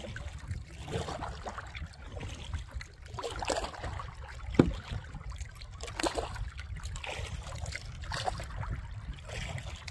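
Lightweight double-bladed paddle dipping into lake water stroke after stroke, about one stroke a second, with splashing and dripping between strokes. One sharp knock comes about halfway through.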